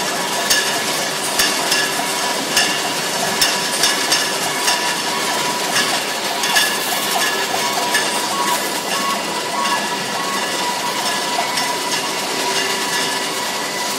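Automated wine bottling line running: a steady machine hum with a constant whine, broken by frequent, irregular sharp clacks and clinks from the moving machinery and bottles.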